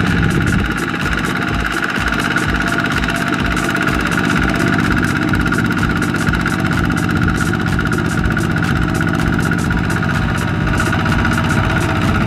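Single-cylinder diesel engine of a two-wheel walking tractor chugging steadily with even, regular beats, working under load as it drags a loaded trailer through mud.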